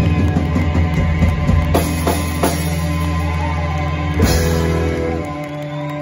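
Live rock band of electric guitars, bass and drums playing loudly, with heavy drum hits and a big crash about four seconds in. About five seconds in the low bass drops out, leaving held guitar notes ringing on.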